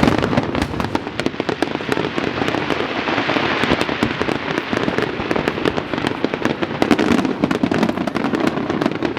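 Aerial fireworks: dense, rapid crackling and popping of many small bursts, steady and unbroken.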